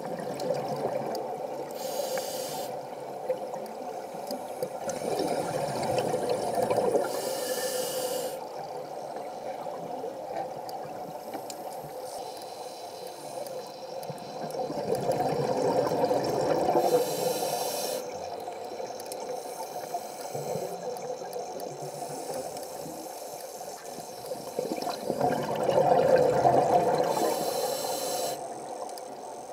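Scuba diver breathing underwater through a regulator: short hissing inhalations and long bubbling exhalations in a slow cycle, about one breath every ten seconds.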